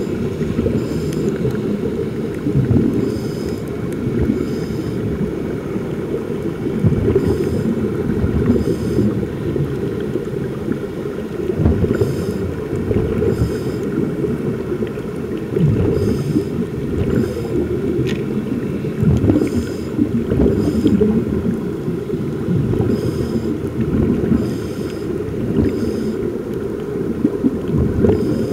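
Underwater ambience heard through a submerged camera: a muffled, churning low rumble of water, with short hissy bursts every few seconds, often in pairs.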